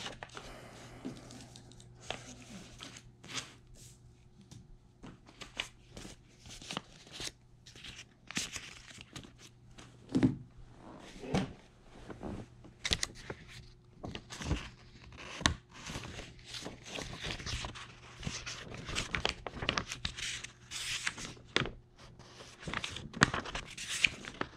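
Sheets of printer paper being handled and flipped through by hand: irregular crisp rustles and snaps, with a faint steady hum beneath.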